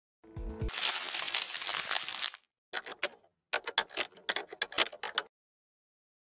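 Video-editing sound effects: a short low thump with a hiss lasting about two seconds, then a quick irregular run of sharp clicks that stops about five seconds in.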